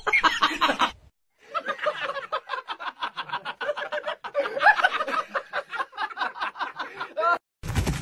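A person laughing in rapid, repeated bursts, breaking off briefly about a second in and then laughing on for several seconds. A burst of low rumbling noise comes near the end.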